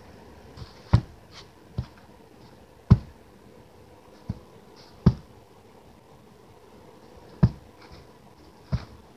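Soft thumps at irregular intervals, about seven of them, with faint rustling of fur and fabric in between, as a hand pats and plays with a Keeshond lying on a rug.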